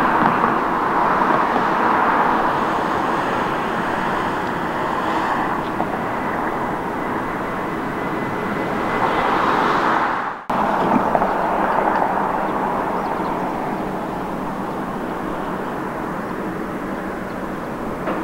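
Jet engines of a Boeing 787-8 taxiing at low power give a steady whooshing hum that swells about nine seconds in. The sound breaks off abruptly at an edit and gives way to the steady, distant engine drone of a four-engined Boeing 747-400 on final approach, fading slightly toward the end.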